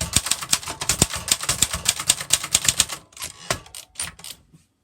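Manual typewriter being typed on fast, a rapid run of key strikes that thins out about three seconds in to a few separate strokes and stops near the end.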